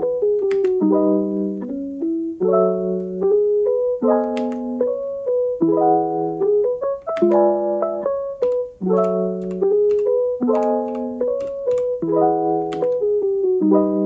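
Background music: soft piano chords in a slow repeating pattern.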